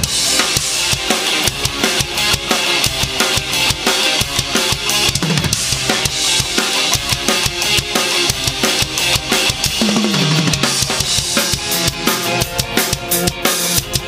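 A DW Collector's Series drum kit with waterfall bubinga shells played as a continuous groove of kick, snare and cymbals, along with a drumless ska backing track.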